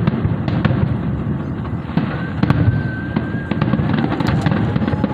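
Fireworks finale: a dense, continuous barrage of booming shells with rapid crackles over it. Two long steady whistles sound over the barrage, the first about two seconds in and the second near the end.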